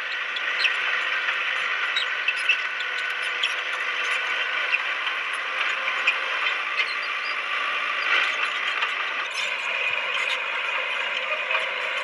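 Bulldozer working, a steady mechanical whine with many scattered clicks and clanks.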